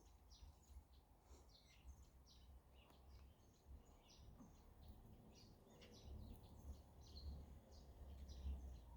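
Faint outdoor ambience of small birds chirping repeatedly, over a low rumble that grows a little louder in the second half.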